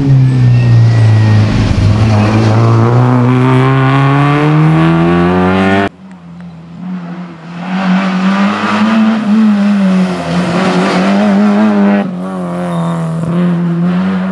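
Rally car engines at full stage pace. The first car's revs drop as it slows into a bend, then climb steeply as it accelerates out. After a sudden cut, a second car runs with high revs that waver up and down through the corner, and another cut follows near the end.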